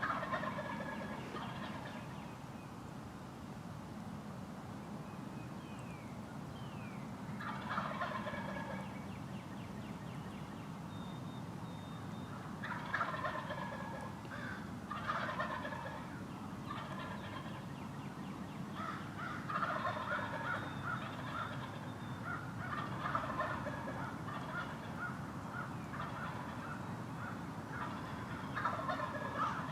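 Wild Eastern turkey toms gobbling repeatedly, about seven rattling gobbles every few seconds, more often in the second half. A few faint songbird notes sound between them.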